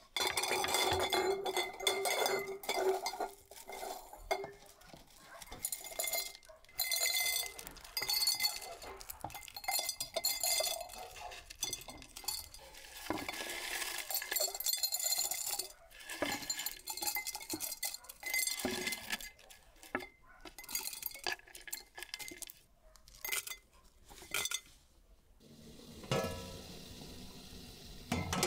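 Glass jars clinking as they are set down on a stone tabletop and knocked together, with the light clatter of dried apple slices and berries dropped into them. The clatter stops about two seconds before the end, leaving a quieter steady sound.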